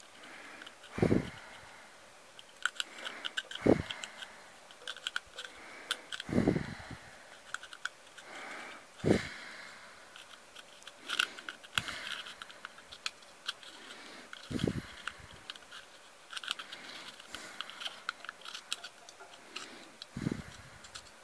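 Small metallic clicks and scrapes as the threaded ring of a stethoscope chest piece is screwed on by hand over a new aluminium beer-can diaphragm. About six dull low thumps, a few seconds apart, are the loudest sounds.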